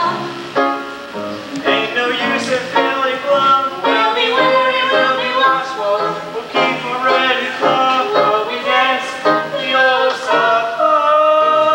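A musical-theatre song: a voice singing over instrumental accompaniment.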